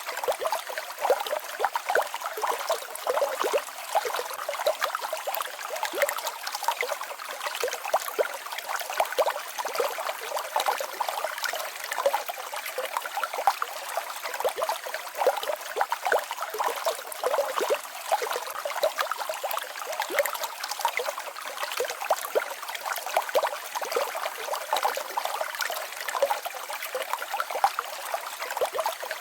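Small mountain waterfall and stream babbling steadily, a dense patter of splashes and trickles with no bass.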